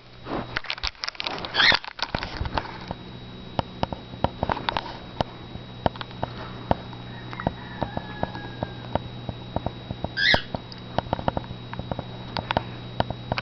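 Rustling and scattered clicks and taps of a handheld camera being moved about, over a steady low hum. Two brief high squeaks come through, one near the start and one about ten seconds in.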